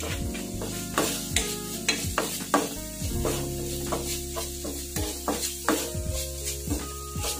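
Minced pork sizzling in a nonstick wok while a wooden spatula stirs it, scraping and knocking against the pan in irregular strokes about twice a second.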